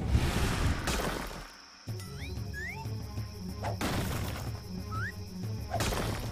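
Cartoon action soundtrack: background music with dramatic sound-effect hits and swells. It cuts out briefly about one and a half seconds in, then resumes with a pulsing low beat, a few short rising synth glides and two more noisy swells.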